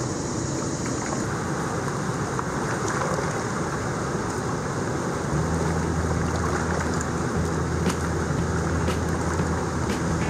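Steady rushing of water released through a dam's spillway gates into the river below. About halfway through, a low steady hum joins it.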